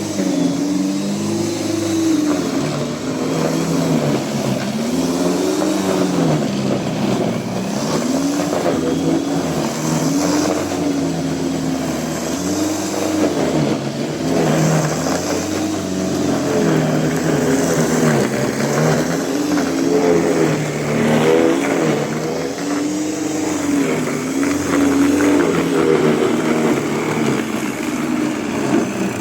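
Bosch electric lawn mower running while cutting grass, its motor pitch dipping and recovering over and over as the load changes.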